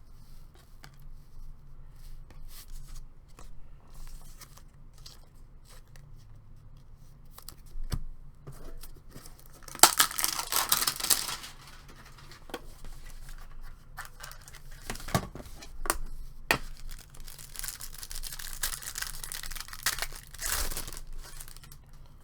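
A trading card pack wrapper being torn open by hand, in two long tearing stretches, one about ten seconds in and one near the end, with scattered clicks and taps from handling in between.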